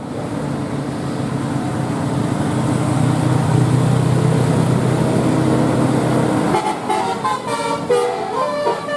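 A bus engine runs with a steady low drone that grows louder over the first six seconds. About six and a half seconds in, a telolet multi-tone horn (Basuri type) starts a quick stepping melody of short tones.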